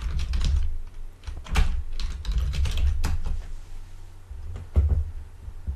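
Computer keyboard typing: a handful of separate keystrokes clicking, with a low rumble beneath them.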